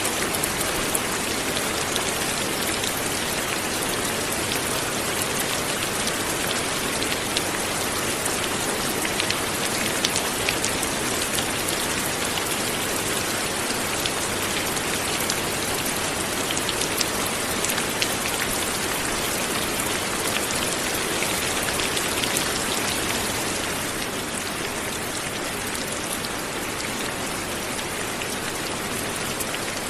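Light, steady rain falling, a dense even patter of drops with scattered sharper drip ticks; it eases slightly in level a little past two-thirds of the way through.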